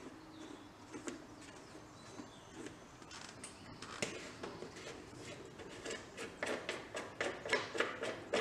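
Hands handling a lawn tractor engine's plastic air-filter cover, undoing its thumb screws: scattered light plastic clicks and knocks, more frequent in the last few seconds.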